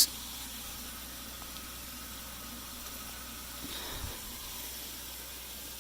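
Steady hiss of water running into the aquaponics grow beds as they refill, with a faint low thump about four seconds in.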